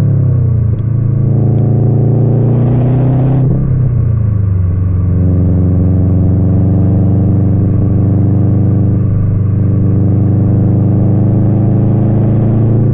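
Subaru WRX STI's turbocharged flat-four engine and exhaust with its rumble, pulling up through the revs for about three seconds, dropping sharply in pitch at a gear change about three and a half seconds in, then running at a steady speed.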